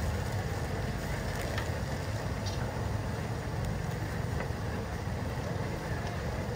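Steady low rumbling background noise, with a few faint metallic clicks of a ladle and tongs in a large steel stockpot of simmering broth.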